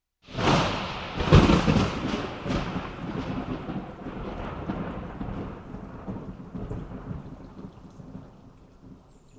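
Thunder crack sound effect: it bursts in suddenly, hits its loudest crack about a second in with a few more cracks after it, then rolls on as a rumble that fades away slowly over several seconds.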